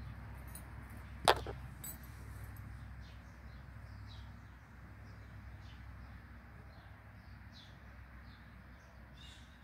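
A knife blade knocks once, sharply, on a wooden slab about a second in, with a brief ring after it. Around it there is a low steady hum and faint, scattered short chirps.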